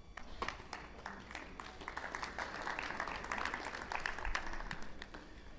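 Applause from a seated audience: scattered claps that thicken about two seconds in and thin out near the end.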